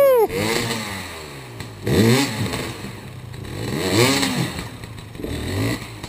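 Dirt bike engine revved in short bursts, its pitch rising and falling about every two seconds, as the bike is worked up out of a steep creek crossing.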